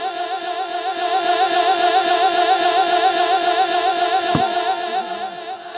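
A man's voice holding one long sung note with a wide, even vibrato, slowly fading near the end. A single short thump sounds about four seconds in.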